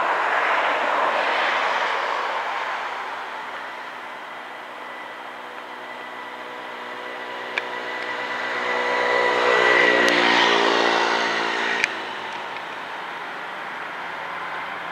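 Passing road traffic: a vehicle swells and fades in the first few seconds, then a louder one with a steady engine hum passes around ten seconds in and cuts off sharply near twelve seconds. There are two brief clicks, one just before the second pass and one as it cuts off.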